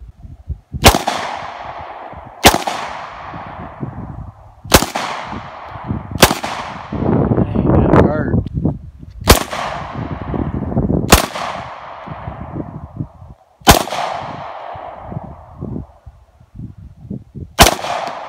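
Glock 23 .40-calibre pistol firing eight single shots at a slow, uneven pace, one every one and a half to four seconds. Each shot has a short fading echo.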